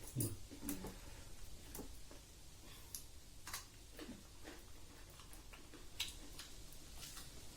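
Close-up eating sounds: chewing and wet mouth smacks, heard as irregular sharp clicks a second or so apart, loudest near the start and about six seconds in.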